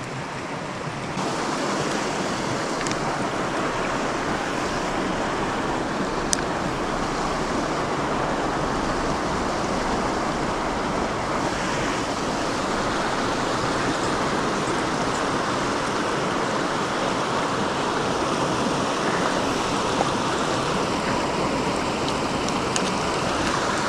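Mountain stream rushing steadily: an even, unbroken wash of water, with a couple of faint clicks.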